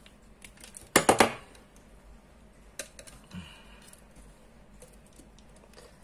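Pliers and a wire being worked at the back of a wall switch on a desk: a quick clatter of sharp clicks about a second in, then a few lighter, scattered clicks.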